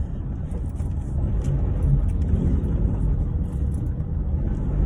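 Steady low rumble of a road vehicle, like a car running along the road, with no sharp events.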